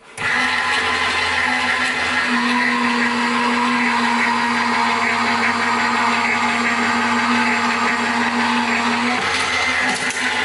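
Gemini Junior electronic die-cutting and embossing machine's motor running steadily as its rollers draw a plate sandwich with an embossing folder through. The motor hums, and a low tone in it grows stronger about two seconds in and eases again about a second before the end.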